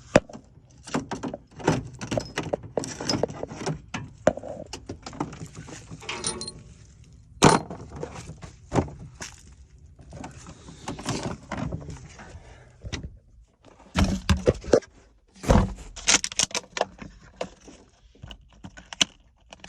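Rummaging through fire-damaged debris in a truck cab: a string of clatters, knocks and rustles as objects are handled and moved, with a few sharper bangs about seven seconds in and again around the fourteen to sixteen second mark.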